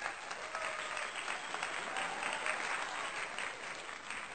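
Applause sound effect: a crowd clapping steadily, cutting off abruptly near the end.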